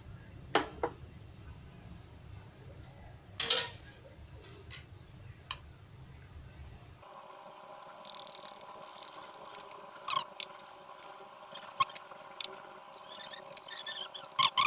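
Metal spoon stirring thick gram-flour (besan) batter in a ceramic bowl, with a few sharp clinks, one of them loud. About seven seconds in, a wire whisk starts beating the batter: rapid ticking and scraping of the wires against the bowl, busiest near the end, over a steady hum.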